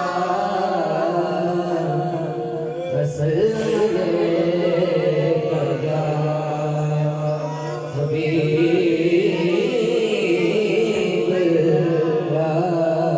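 Devotional chant-style music: a wavering melodic line held over a steady low drone, with no words in it. It leads into a sung manqabat.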